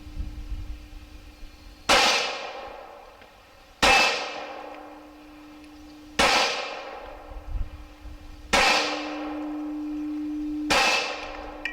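Five 9mm Glock 26 pistol shots, roughly two seconds apart, each followed by a ringing clang that dies away over a second or two.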